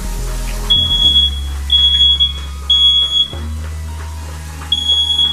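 Smoke alarm sounding its high-pitched beep: three beeps about a second apart, a pause of over a second, then the next group starting. This is the standard three-beep evacuation pattern of a smoke detector.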